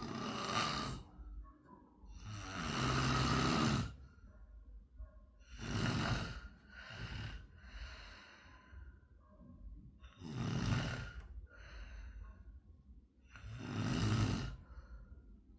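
A sleeping person snoring: five loud snores about every three to four seconds, with fainter breaths between them.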